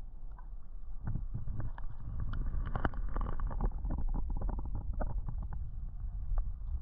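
Low wind rumble on the microphone, with irregular small splashes and knocks of water and handling, busiest in the first half.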